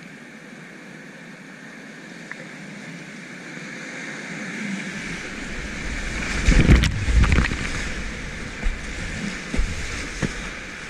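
Whitewater rushing around a kayak, louder as it enters a rapid, with heavy splashing and low thumps as the bow crashes through a breaking wave about six seconds in. After that come a few sharper splashes.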